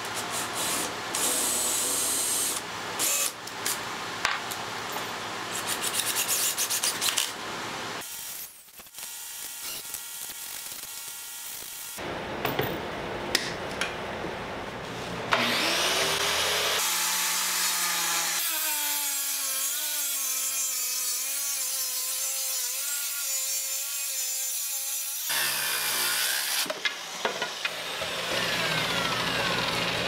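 Woodworking power tools in a series of cuts: a corded circular saw runs along a straightedge through a board for about ten seconds from the middle, its motor pitch wavering under load, followed near the end by a WEN electric hand planer shaving the wood. Other workshop tool noise with scattered clicks comes earlier.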